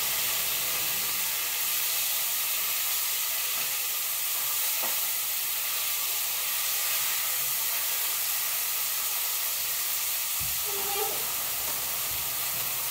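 Food sizzling in a hot frying pan: a steady, even hiss that goes on unbroken.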